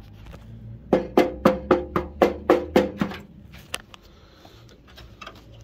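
A short percussive music cue: a run of about nine evenly spaced, pitched wood-block-like knocks, about four a second, starting about a second in, with one more knock shortly after.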